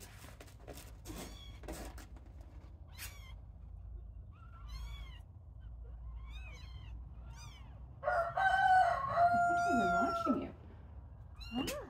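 Young kittens mewing in thin, high cries, about five times in quick succession, then a rooster crowing loudly about eight seconds in, a held call of about two and a half seconds.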